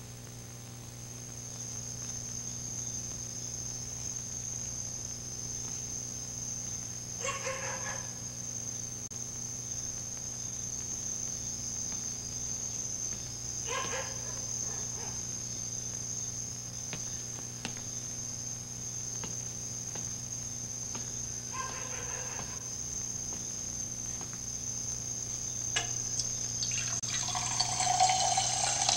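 A steady high-pitched cricket trill over a low electrical hum, broken three times by a short pitched animal call. Near the end a tap is turned on and water starts running into a sink.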